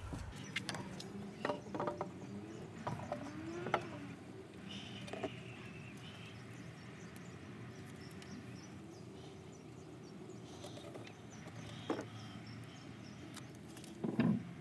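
Scattered light clicks and taps, about eight in all, over faint outdoor background noise.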